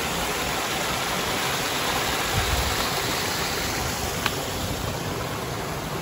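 Small waterfall pouring over rocks into a shallow stream: a steady rushing splash. A single short click about four seconds in.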